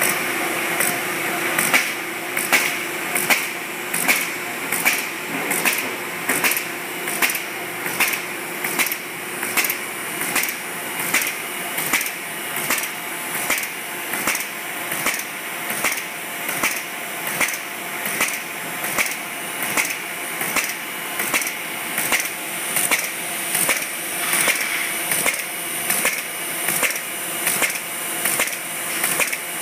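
Folder-gluer running steadily, with a sharp click repeating about every two thirds of a second as sheets are fed through and folded.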